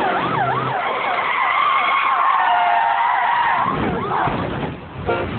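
Police car siren wailing fast up and down, then cut off by a long tyre screech of about three seconds as the car skids and slides sideways. The siren sweeps up once more near the end.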